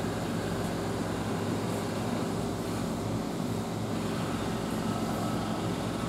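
Steady low hum with an even hiss: background room noise of the shop, with no distinct handling or filing sounds standing out.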